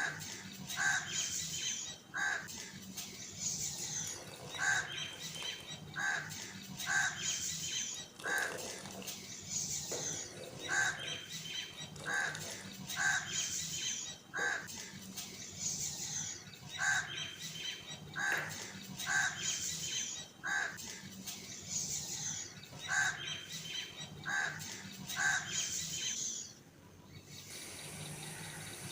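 Birds calling over and over: short, harsh calls about once a second, with higher chirps among them, pausing briefly near the end.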